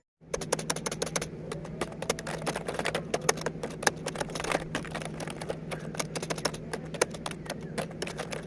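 Rapid typing on an Elista ELS WK710 gaming keyboard: a dense, uneven stream of key clicks, with a steady low hum underneath.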